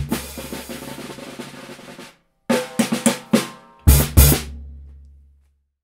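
Drum kit: a dense stretch of snare playing for about two seconds, a brief pause, then four quick strokes and two loud final strokes with the bass drum that ring out and fade.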